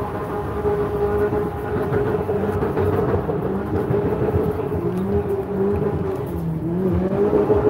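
Race car engines held at high revs, running continuously, with the pitch wavering and a lower engine note rising and falling a few times in the second half.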